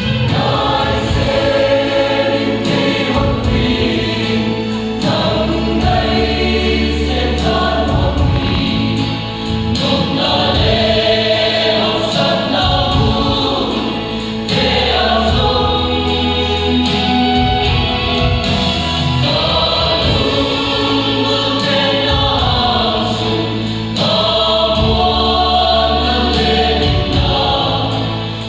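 A large mixed church choir of men and women singing a hymn together, with sustained low bass notes underneath and short breaths between phrases.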